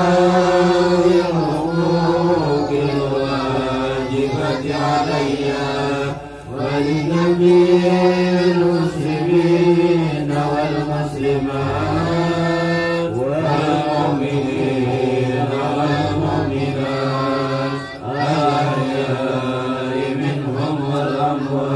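Male voices chanting a melodic habsyi Maulid recitation in praise of the Prophet, without drums, in long drawn-out phrases that pause briefly about six seconds in and again near eighteen seconds.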